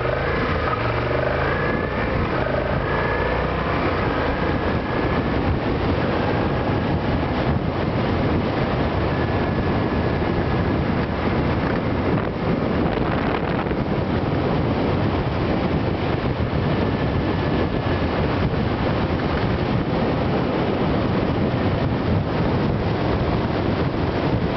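Heavy wind rushing over the microphone of a camera mounted on a Suzuki Gladius 400 motorcycle riding at speed, with the bike's V-twin engine running underneath. The engine note rises and falls in about the first four seconds.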